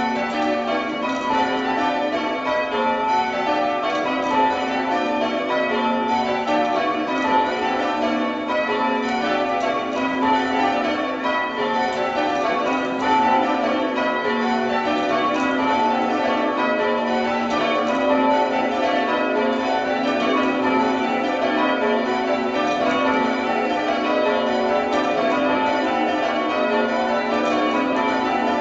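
The back six church bells of a light eight-bell ring (8 cwt tenor) being rung down by hand on ropes, heard from the ringing chamber below. The bells strike over and over in a steady, dense stream of overlapping notes.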